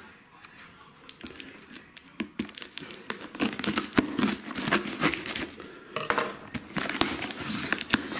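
A knife slitting the packing tape along a cardboard box's seam, then the cardboard flaps being pulled open with scraping and rustling. The handling starts about two seconds in and grows busier and louder.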